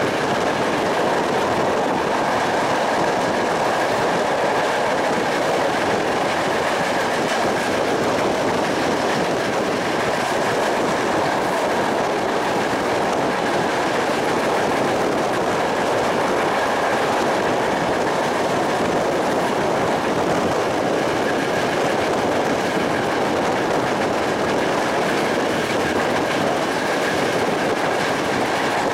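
Passenger train running steadily along the track, heard from an open carriage window: an even rush of wheels on rails with a faint steady high tone over it.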